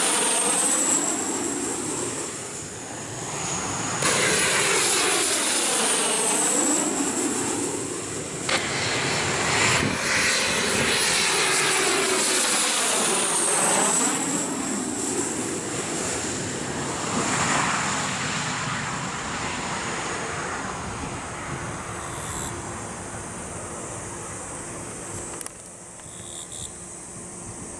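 Kawasaki T-4 jet trainers passing low overhead one after another on landing approach: a loud twin-turbofan whine and rumble that drops in pitch as each jet goes by. From about two-thirds of the way in, the sound becomes fainter and steadier, as of a jet further off.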